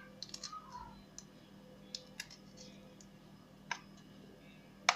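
Scattered light clicks and taps of kitchen handling, with a louder knock near the end.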